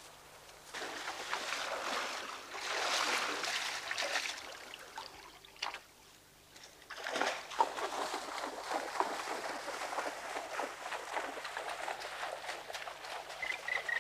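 A horse wading through shallow lake water, its hooves splashing and sloshing in two stretches, with a brief lull about six seconds in.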